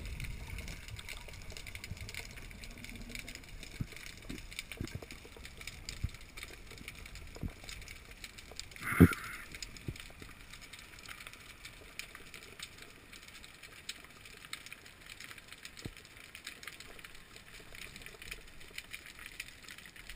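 Underwater ambience picked up by a camera in its housing: a low steady hiss with scattered faint clicks and crackles. About nine seconds in there is a single short, loud knock.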